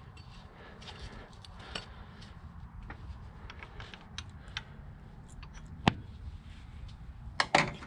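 Scattered light clicks and taps of hands and small parts working at an engine's timing belt and cam gears, with one sharper click about six seconds in and a few more near the end, over a faint steady low hum.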